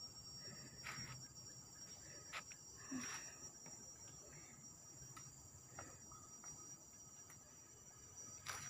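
Steady high-pitched chorus of insects in tropical forest, with a few faint footsteps or scuffs on the trail.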